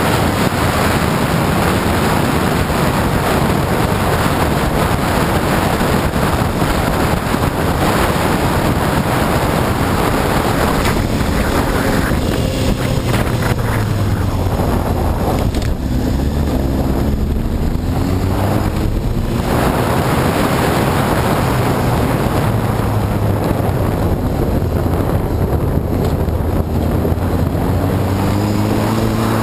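Wind rushing over the microphone of a moving Honda CBR954RR sport bike, its inline-four engine running underneath. About halfway through the wind eases and the engine's pitch falls as the bike slows, then rises again near the end.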